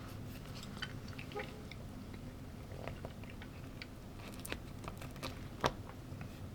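A person chewing food, with scattered short crisp clicks and crunches; the sharpest click comes near the end.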